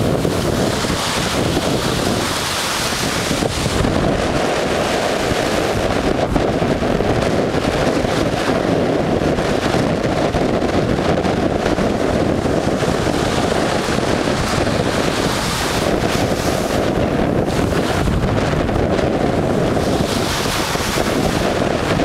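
Small shore waves breaking and washing up the sand. The hiss of the surf swells near the start and again near the end, under steady wind rumbling on the microphone.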